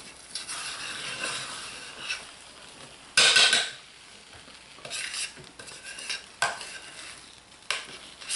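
A spatula stirring and scraping thick hot-process soap paste around a slow cooker's crock. There is a louder rasping scrape about three seconds in, and a few short sharp knocks later on.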